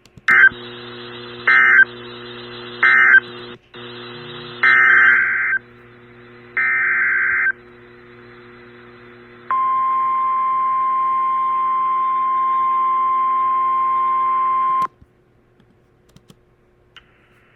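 Emergency Alert System broadcast signals: a run of short raspy digital data bursts (the coded alert header), then a steady single-pitch weather radio warning tone of about 1050 Hz held about five seconds. The tone cuts off suddenly, and a low steady hum runs underneath.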